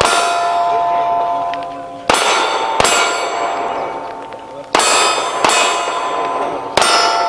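Five pistol shots at an uneven pace, each followed by the ringing of a struck steel target plate.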